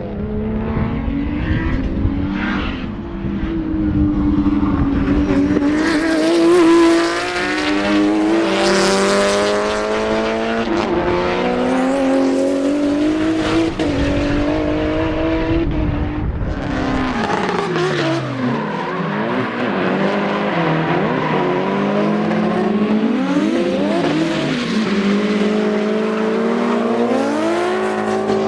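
Race car engines at high revs on track, their pitch climbing through the gears and dropping sharply on lift-offs and downshifts. In places more than one engine is heard at once, and it is loudest about six to seven seconds in.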